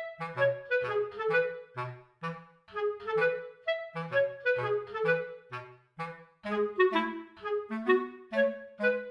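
Background music: a quick, bouncy tune of short notes on a reed-like lead over separate low bass notes.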